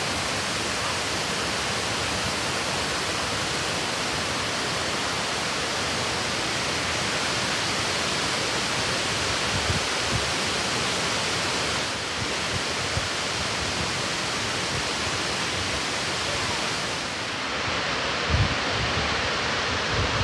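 Steady rush of a large waterfall on the Genesee River, falling water heard from the gorge rim. A few low thumps of wind on the microphone come near the end.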